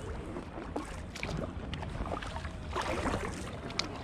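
Kayak paddle strokes: the paddle blades dip and splash in the water about every second and a half.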